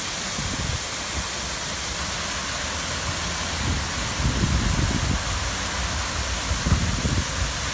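Artificial waterfall pouring down a rock wall into a pool: a steady rush of falling water, with a few irregular low rumbles.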